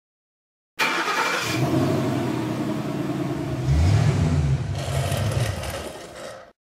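Car engine starting up about a second in and running, revved once around four seconds in, then fading out shortly before the end.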